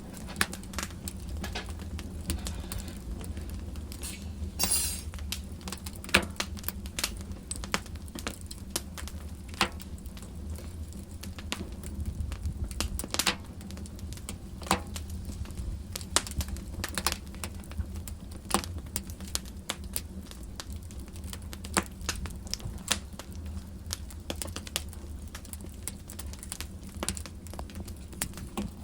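Wood fire burning in a fireplace: the flames give a low steady rumble, broken by frequent irregular sharp crackles and pops, with a brief hiss about five seconds in.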